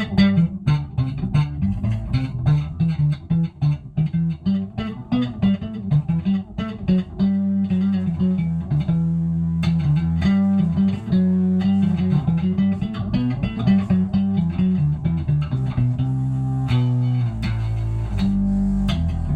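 Electric bass played through a mono synth pedal: a synth bass tone with much of the high end taken off and a sub-octave feel, in a busy run of quickly plucked single notes.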